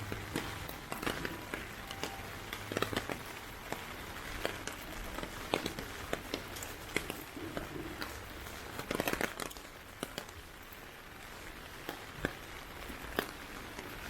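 Heavy typhoon rain: a steady hiss of rain with many irregular sharp drips and taps, a cluster of them about nine seconds in.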